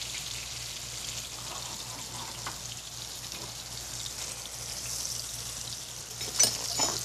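Slices of marinated firm tofu frying in oil in a pan, a steady sizzle. Near the end the spatula gives a couple of short knocks against the pan.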